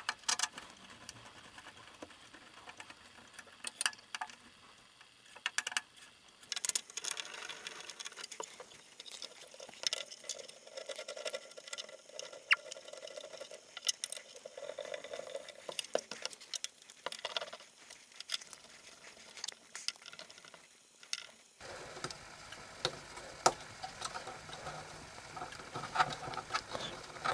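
Hand tools and parts being handled while a LOTMAXX SC10 3D printer kit is put together: scattered light clicks, taps and scrapes of a screwdriver and a hex key against screws and the printer's metal base and frame.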